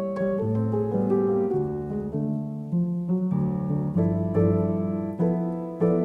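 Background piano music, a slow melody of struck notes and chords, about two a second.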